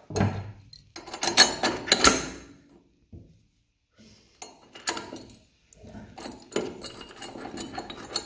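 Steel mount brackets and bolt clinking and knocking against a steel chassis rail as they are set in place and bolted up. Near the end comes a quick run of clicks as the bolt is done up with a hand tool.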